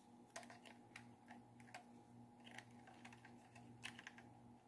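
Near silence with faint, scattered small clicks and taps from a USB flash drive being handled over a plastic portable voice amplifier, over a low steady hum.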